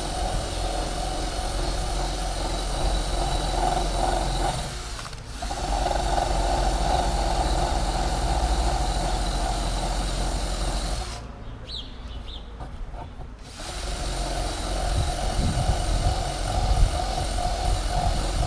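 Electric power tool running with a steady hum, cutting out briefly about five seconds in and again for a couple of seconds past the middle, then running on.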